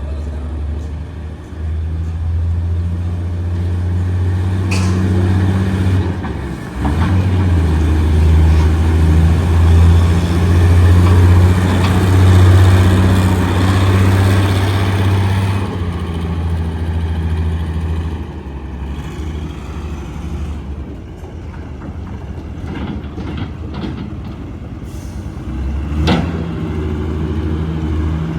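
Hitachi EX160WD wheeled excavator's diesel engine running with a strong low hum, louder through the first half as it works harder, then dropping back to a lower steady run. A few short sharp hisses or clicks cut through, the loudest near the end.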